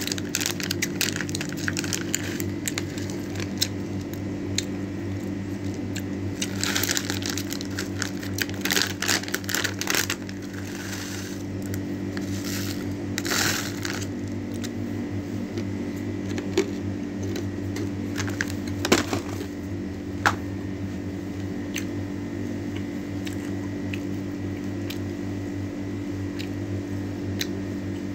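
A foil-lined plastic packet crinkling as it is handled and opened, in several short bursts with scattered clicks, over a steady low hum.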